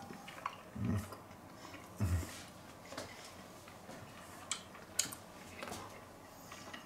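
A man chewing a bite of grilled veal chop with his mouth closed: soft, scattered mouth clicks and lip smacks, with two short low hums about one and two seconds in.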